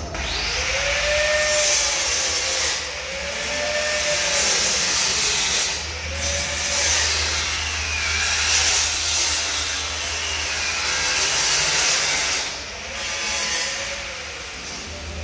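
Angle grinder working steel, running continuously with a whine that sags and recovers as the disc bites into the metal. It eases off briefly about three seconds in, again near six seconds, and once more near the end.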